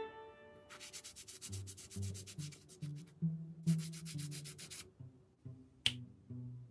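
Two bursts of rapid scraping strokes, each lasting about a second and a half, with a single sharp click near the end. Low bowed-bass background music plays throughout.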